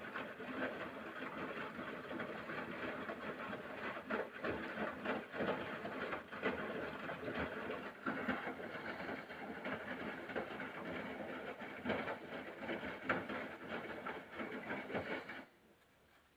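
Haier washing machine drum turning during the rinse, a steady mechanical run with frequent clicks and knocks, which stops suddenly near the end.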